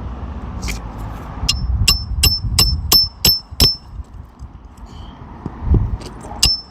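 Hammer driving a roofing nail through an asphalt shingle: about seven quick, ringing strikes, a little under three a second, then two more near the end.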